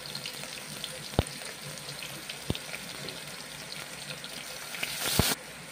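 Tempering of sliced onion, dried red chillies, curry leaves and crushed garlic sizzling steadily in hot oil in a steel pot, with three sharp clicks spread through it.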